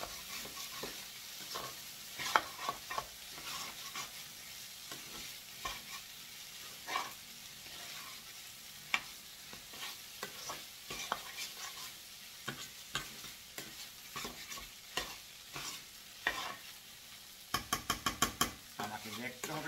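Fried rice being stirred and scraped with a spatula in a stainless-steel frying pan, scattered scrapes and clicks over a faint sizzle. Near the end comes a quick run of about ten sharp knocks.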